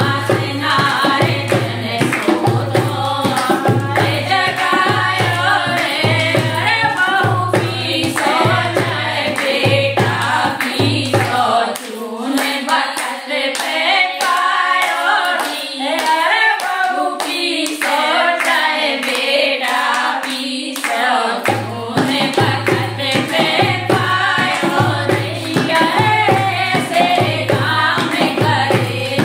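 Group of women singing a Haryanvi folk song (lok geet) together, with hand-clapping and a dholak drum keeping a steady low beat. The drum drops out for about ten seconds in the middle, leaving only the singing and clapping, then comes back in.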